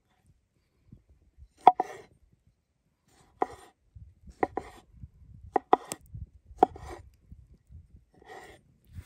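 Chef's knife cutting cherry tomatoes on a wooden cutting board: about six sharp knocks of the blade on the board, irregularly spaced, each followed by a brief soft rasp.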